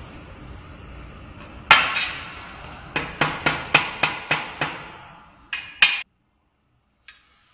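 Metal strikes on the steel tube stacking frame, ringing: one hard knock, then a quick run of about eight knocks at roughly four a second, then two more. The sound cuts off suddenly about six seconds in.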